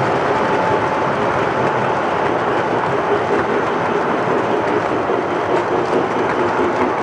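O-gauge toy trains running on three-rail track: a steady rolling rumble of wheels and motors.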